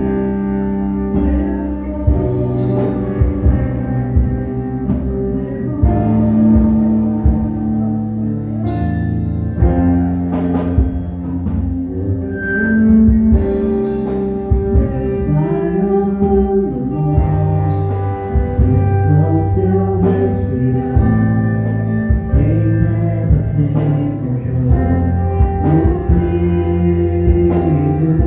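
Live gospel worship music from a church band: guitar and bass over a steady beat, with singing.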